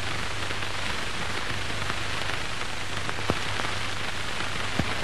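Steady hiss and crackle of an old 1930s film soundtrack, with a low hum underneath and a couple of faint clicks.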